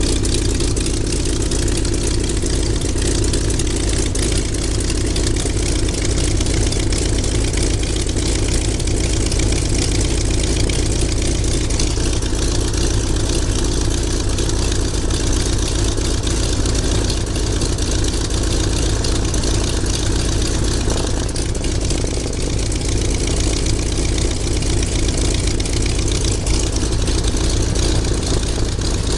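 Twin-engine propeller aircraft's piston engines idling steadily, close beside the spinning propeller.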